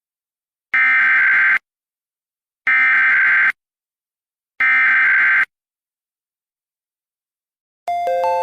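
Emergency Alert System SAME header: three bursts of digital data tones, a harsh warbling between two pitches, each just under a second long with about a second of silence between them, encoding a required weekly test. Near the end a chime of changing tones begins.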